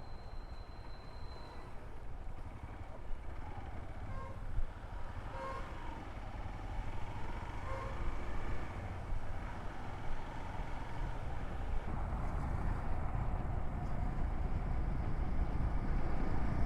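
Hero XPulse 200's single-cylinder engine running at road speed with wind rush, a steady low drone. Two short beeps come about five and eight seconds in, and the noise grows slightly louder near the end.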